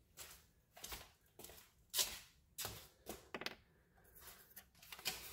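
Faint, scattered clicks and light knocks of footsteps on a concrete floor and of a license plate with its bolts being handled, the sharpest knock about two seconds in.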